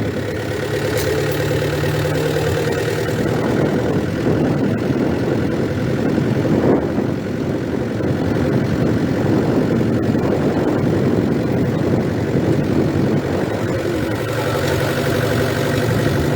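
A vehicle driving, its engine and tyre noise running steadily.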